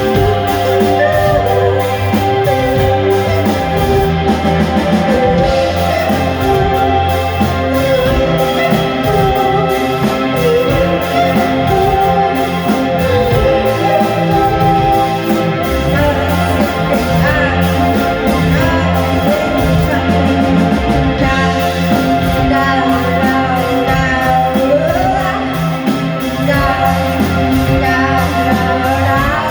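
A live band playing a song: guitar over held bass notes and a steady drum beat, with a singer's voice gliding over it.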